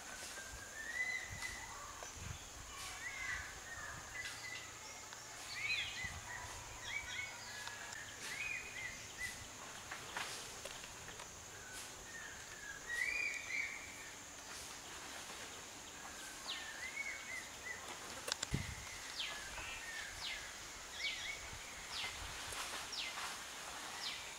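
Birds chirping and calling over and over, over a steady high hiss. Scattered light taps of a knife slicing green chillies on a wooden cutting board, with one sharper knock about 18 seconds in.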